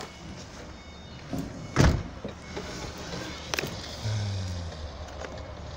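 A car door being shut with a single loud thud about two seconds in, followed by a smaller knock and light handling noise on the car body.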